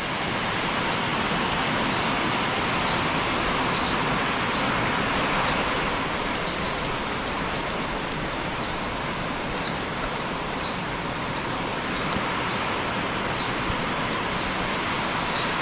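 Steady, heavy rain drumming on a barn roof, an even hiss that holds without letting up.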